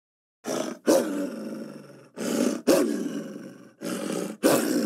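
Dingo growling in three similar bouts about a second and a half apart, each a short softer lead-in followed by a sharp, loud start that fades away.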